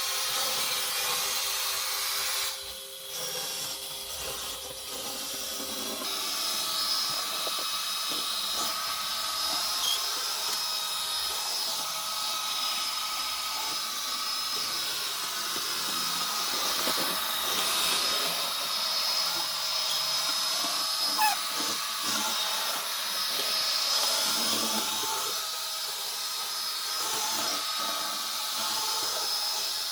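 Lejoy LD20 robot vacuum cleaner running: a steady hissing whir with a thin high whine, dipping briefly about three seconds in.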